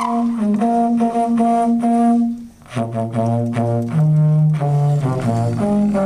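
Trombone playing a string of held notes. There is a short break about two and a half seconds in, then lower notes stepping up and down.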